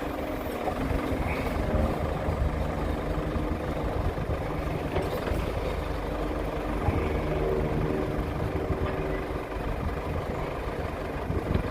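Diesel engine of a New Holland 655E backhoe loader running steadily while the backhoe is worked. Its note rises for a couple of seconds about two-thirds of the way through.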